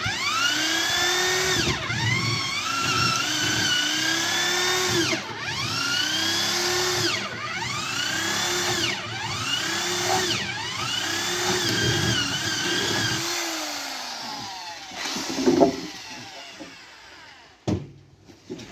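Corded electric drill boring a hole through a wooden pole. The motor's pitch rises and then sags again and again, about every two seconds, as the bit is worked through the wood. It winds down about two-thirds of the way in, followed by a couple of sharp knocks near the end.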